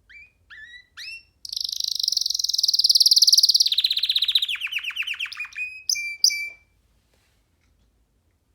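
Young domestic canary singing one phrase: three short rising notes, then a long, fast trill that drops into a lower, sweeping trill, and a few short chirps to close.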